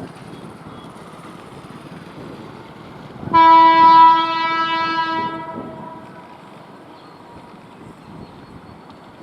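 WAP-7 electric locomotive's horn: one long blast starting about three seconds in, loud for about two seconds and then dying away, over steady background noise.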